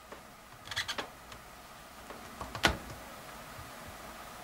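A few light clicks and taps as the metal display hinge of a Lenovo ThinkPad T440 is worked by hand against the laptop's plastic frame: a short cluster about a second in and one sharper click near the middle.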